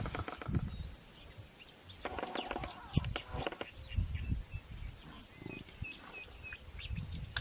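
Spotted hyena pack feeding on a live buffalo: scattered short calls and noises from the animals, with a run of short high chirps about two-thirds of the way through.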